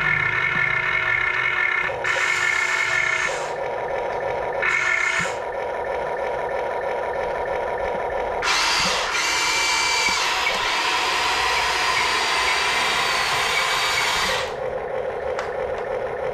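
Electric gear motors of a toy RC excavator whining in short runs of a second or so as it drives, then one longer, louder run lasting about six seconds, from roughly eight seconds in.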